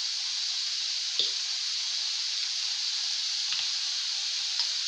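Vegetables with soy and chilli sauce frying in oil in a pan, a steady sizzle, with a few light knocks about a second in and again near the end.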